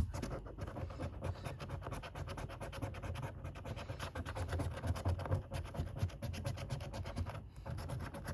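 Scratch card being scratched off in rapid, repeated short strokes, with a brief pause near the end.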